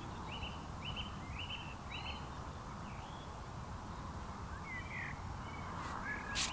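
Evening countryside ambience with a steady low rumble of wind, and a small bird calling: a quick run of about five short, similar chirps in the first two seconds, then scattered chirps later. A single sharp click near the end, like a camera shutter.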